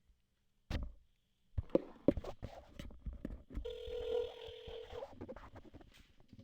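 A telephone call being placed: a knock and a run of clicks from the phone being handled, then a ringing tone on the line for about a second and a half.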